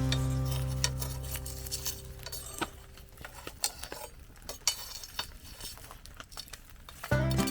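A held music chord fading out over the first two seconds, then scattered light clicks and clinks, like small metal or glass items knocking, until the music comes back in near the end.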